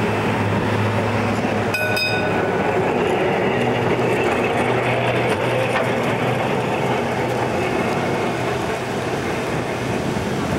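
Vintage electric tram passing close by: a steady low hum with rolling wheel and track noise. A bell rings twice in quick succession about two seconds in.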